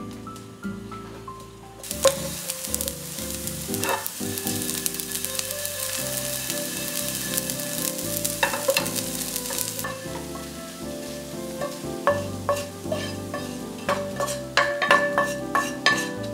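Cornstarch-coated soybeans and dried baby sardines shallow-frying in oil in a frying pan, sizzling, with clicks and scrapes from a wooden spatula and chopsticks stirring them. The sizzle comes in about two seconds in, and a flurry of clicks near the end comes as the beans are scraped out of the pan.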